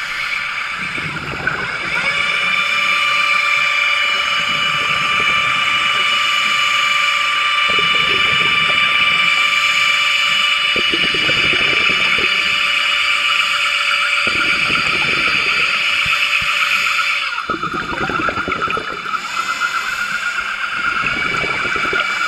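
Passenger submarine's propulsion heard underwater as a steady high whine of several tones, strengthening about two seconds in and changing pitch near the end. A diver's exhaled bubbles from a scuba regulator rush past every few seconds.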